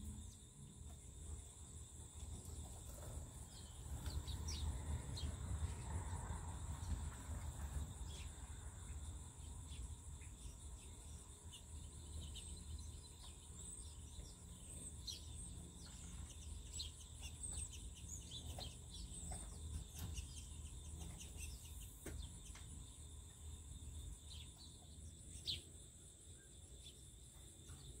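Insects trilling steadily in two high, even bands, with many short bird chirps and calls over them, busiest in the middle and one sharp chirp near the end. A low rumble swells for a few seconds starting about four seconds in.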